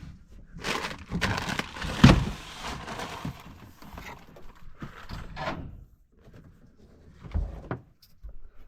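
A handful of knocks and thuds with rustling handling sounds between them, the loudest knock about two seconds in.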